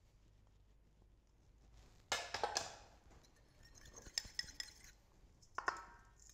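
Ceramic bowls and a fork clinking against a stainless-steel mixing bowl while ingredients are tipped in: a sharp ringing clink about two seconds in, a few light taps, and another clink near the end.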